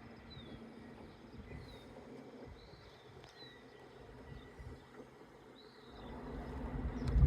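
Faint short chirps repeating roughly once a second over a quiet background, with a low rumble swelling near the end.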